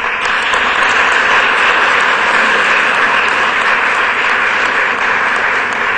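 Audience applauding, breaking out all at once and holding steady.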